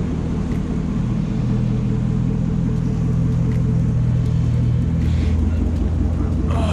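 C5 Corvette's V8 engine idling steadily with a low, even rumble.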